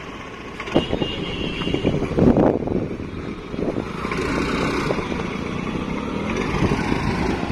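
Battered gearless scooter being kick-started, its small engine running unevenly, with louder surges about one and two seconds in.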